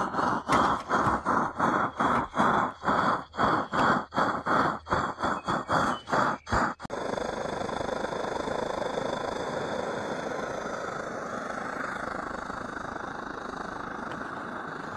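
Liquid-fuel camp stove burner running with a steady hiss. For the first seven seconds or so it is overlaid by a fast rhythmic pulsing, about three or four beats a second, which stops abruptly.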